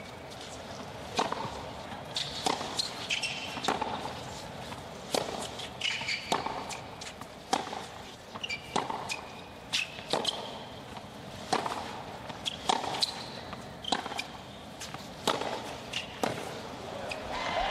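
Tennis rally on a hard court: sharp racket strikes and ball bounces about every second, with short high squeaks of sneakers on the court between shots.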